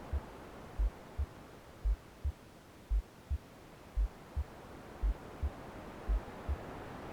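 Womb-sound heartbeat: soft, low lub-dub double thumps at about one beat a second, over a steady hushed white noise. The noise dips in the middle and swells again near the end.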